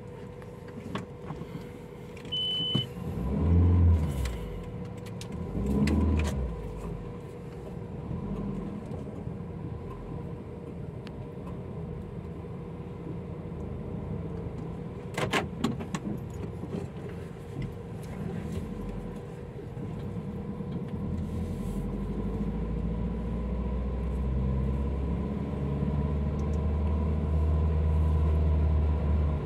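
Car on the move: steady low engine and road rumble with a faint hum. Two loud swells come about 4 and 6 seconds in and a brief cluster of clicks about halfway through, and the rumble grows louder over the last several seconds.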